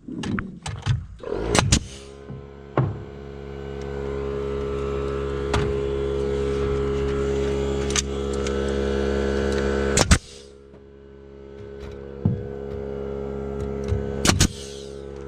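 Pneumatic framing nailer firing a handful of sharp shots into framing lumber, over the steady hum of an air compressor motor that starts up about two seconds in and keeps running.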